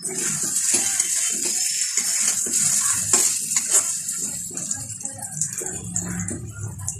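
Boiled potatoes frying in spiced oil and masala in a steel kadai, giving a steady high sizzle, with a spatula clinking and scraping against the pan as they are stirred.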